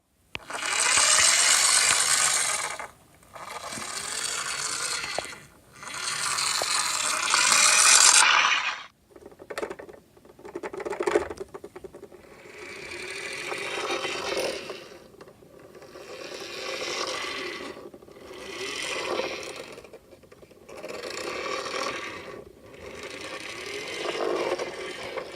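Toy vehicles being pushed along a surface: wheels and plastic bodies scraping and rattling in a run of pushes, each a couple of seconds long with short pauses between.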